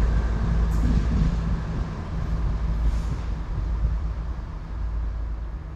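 Queensland Rail diesel tilt train carriages rolling past over a bridge: a steady low rumble of wheels on rail that slowly fades. There are two faint high hisses about a second and three seconds in.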